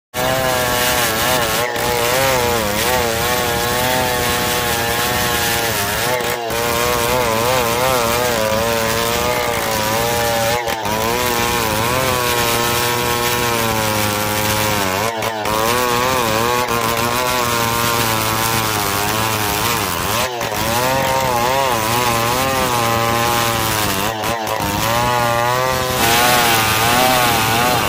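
Two-stroke chainsaw running at full throttle while ripping lengthwise through a log of pule wood to slab out planks. The engine pitch wavers up and down continuously as the chain bites and the load shifts, with short breaks every four or five seconds.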